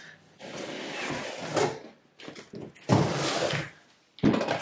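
Cardboard scraping and rustling as a large cardboard product box is slid out of its corrugated shipping carton, in three noisy bursts, the last starting sharply near the end.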